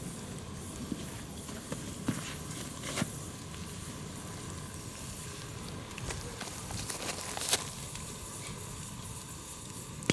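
Wood campfire crackling, with scattered sharp pops, over a steady sizzle from the frying pan on the fire.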